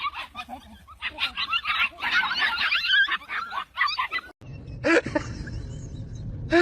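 Many birds calling at once in rapid, short honking calls. About four seconds in they cut off suddenly, and a low rumble with a few separate calls follows.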